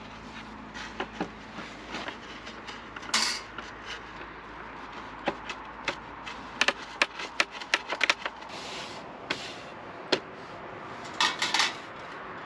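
Irregular clicks and knocks of hard objects, wood and metal, being handled or set down, some in quick clusters.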